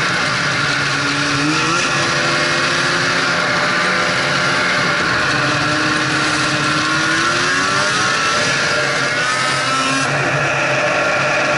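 Snowmobile engine running under way, its pitch climbing with throttle about a second and a half in and again over several seconds later on, then dropping near the end.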